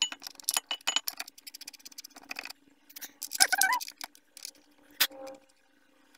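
Metal clicks, clinks and light rattles of a brake caliper being handled and seated over the disc rotor and its bracket. About halfway through there is a short wavering pitched sound, the loudest moment.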